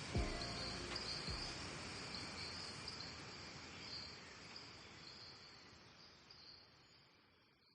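Insects chirping in a rapid pulsing trill over a steady hiss of background noise, with a last low music note near the start; everything fades out steadily.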